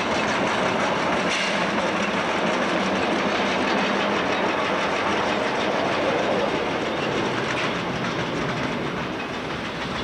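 Narrow-gauge steam locomotive and tender running through a rail yard: a steady, noisy working sound of the engine and its wheels on the track, easing a little near the end as it pulls away.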